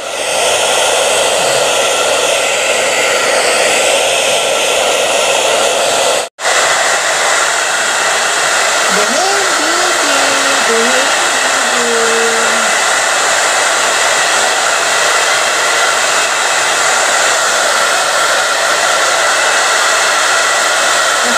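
Handheld hair dryer blowing steadily while drying a dog's wet fur, with a very short break about six seconds in.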